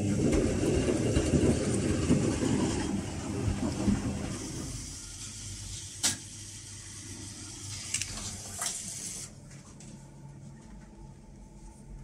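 Arctic L800TA front-loading washing machine drum turning with soapy wash water, the water splashing and sloshing inside. Loudest for the first four seconds or so, then a quieter wash with a few sharp clicks; it cuts off suddenly about nine seconds in, leaving a faint low hum.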